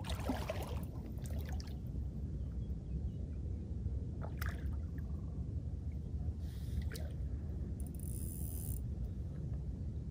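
Several brief water splashes and sloshes from a hooked fish thrashing at the surface as it is drawn toward a landing net, the first and loudest right at the start, others around the middle and near the end, over a steady low rumble.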